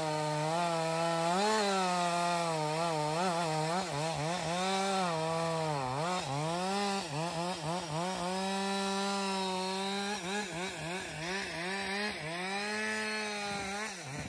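Husqvarna 572 two-stroke chainsaw running and cutting wood, its engine pitch repeatedly dropping and climbing as it is throttled and loaded through the cuts, with a deeper dip near the end.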